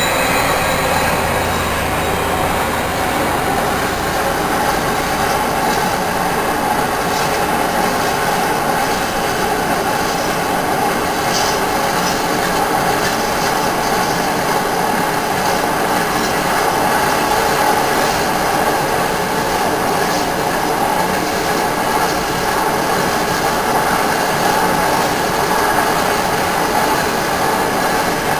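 Long train of empty coal gondola wagons rolling past at steady speed, with a loud, continuous rumble and clatter of wheels on rails and some wheel squeal. For the first few seconds the low hum of the ST44 (M62) locomotive's two-stroke diesel engine is heard as it goes by.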